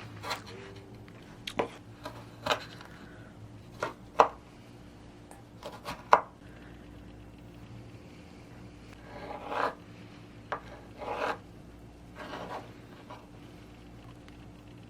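Kitchen knife cutting vegetables into thin strips on a cutting board: irregular knocks of the blade on the board, the sharpest about four and six seconds in, with longer scraping sounds around nine to eleven seconds.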